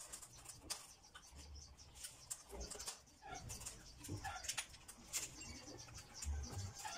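Faint, irregular clicks and knocks of hands handling and turning a bare BT80 80cc two-stroke motorized-bicycle engine in its foam packing, with a few short low thuds.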